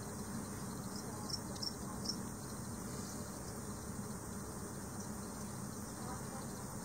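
Steady low hum and hiss of room tone, with a few faint short high chirps or ticks about one to two seconds in.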